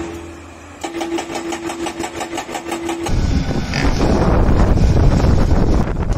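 A hydraulic breaker hammer on an excavator pounds rock in rapid, evenly spaced blows over a steady engine tone. About three seconds in, this gives way to a louder, rougher noise: a large excavator's engine straining while its attachment works through rock.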